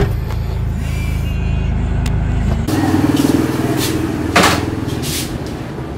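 A motor vehicle engine running with a steady low hum that drops away about two and a half seconds in, then a sharp knock a little after four seconds.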